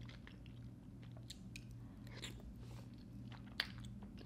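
Close-miked eating sounds: soft, wet chewing and mouth clicks on a mouthful of fettuccine Alfredo noodles, with a sharper click about three and a half seconds in.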